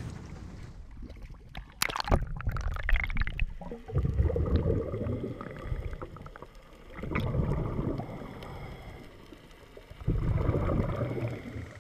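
A short splash of water about two seconds in, then muffled underwater sound: low gurgling surges that come and go three times.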